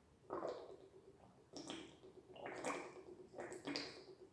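Faint clicks and rustles of a plastic supplement bottle being handled, a few short separate sounds.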